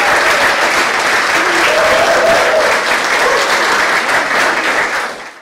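Audience applauding steadily in a hall, with a voice or two calling out briefly over the clapping. The applause fades out quickly right at the end.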